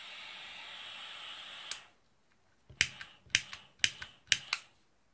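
Dremel VersaTip butane soldering iron: a steady gas hiss cut off with a click just under two seconds in, then the new piezo igniter snapped four times, each press a quick double click about half a second apart.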